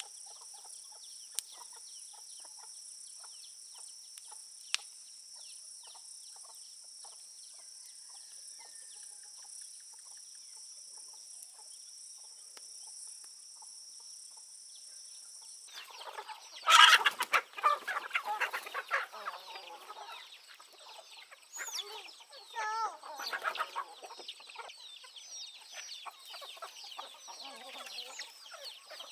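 A steady high insect drone with two sharp clicks, which cuts off abruptly about halfway through. Then chickens cluck and call, loudest just after the change.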